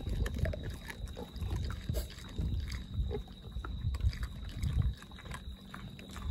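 Peccaries feeding close by, chewing and crunching corn kernels and snuffling at the ground, heard as irregular quick clicks and low thumps.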